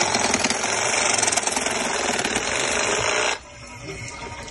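Cordless reciprocating saw cutting through a PVC pool pipe to remove an elbow. The saw runs loud and steady, then stops abruptly a little over three seconds in.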